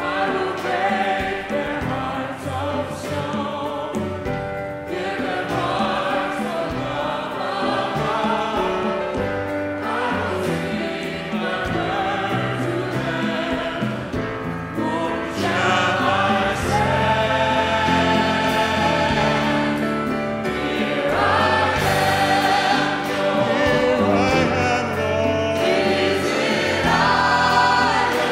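A large congregation and choir singing a hymn together.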